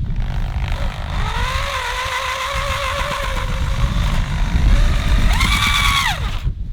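An engine running with a wavering note, revving up sharply about five seconds in, then dropping away and stopping abruptly.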